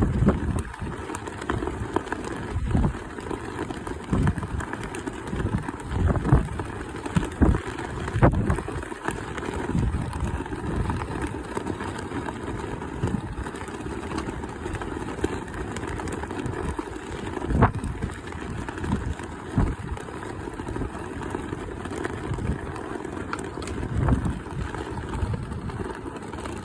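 Strong wind buffeting the microphone in irregular gusts, a low rumble that swells and drops every second or two, with a few sharp clicks.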